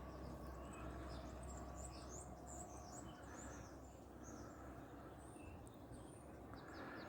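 Small birds chirping in quick, scattered calls over a faint, steady low background rumble.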